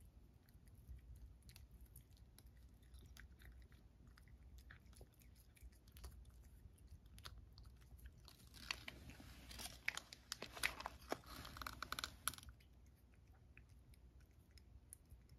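A cat chewing and crunching small dry Churu Bits treats: faint, irregular crunching clicks, busiest for about four seconds in the second half.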